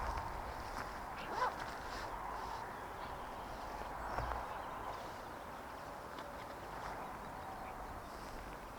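Quiet outdoor background with a faint steady hum, a few faint clicks, and one short chirp about one and a half seconds in.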